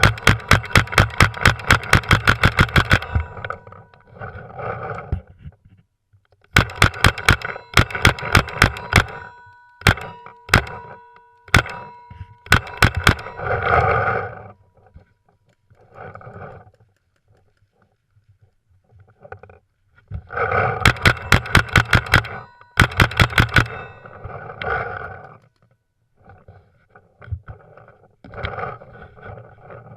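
Airsoft guns firing full-auto bursts of two to three seconds each, a rapid even string of shots over the whir of the gun's motor and gearbox. A few single shots come between the bursts.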